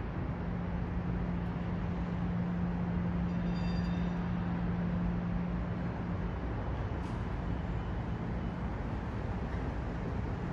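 Steady city traffic noise, with a low engine hum that fades out about eight seconds in and a faint brief high squeal a few seconds in.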